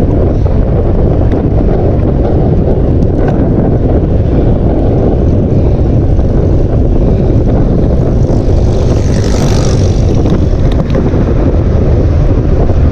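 Heavy wind buffeting the microphone of a moving bicycle: a loud, steady rumble. About eight seconds in, a higher hiss swells and fades out over roughly two seconds.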